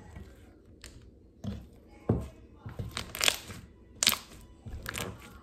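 Slime squished and pressed by hand on a tabletop, giving a run of sharp wet pops and crackles. The loudest come about two, three and four seconds in.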